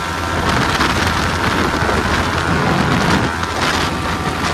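Heavy wind noise on the microphone of a Yamaha R15 sport motorcycle at high speed, with its 155 cc single-cylinder engine running underneath at steady high revs.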